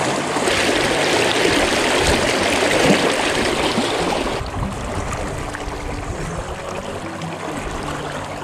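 River current rushing and splashing around wading legs close to the microphone. About four and a half seconds in it drops abruptly to a quieter, softer flow.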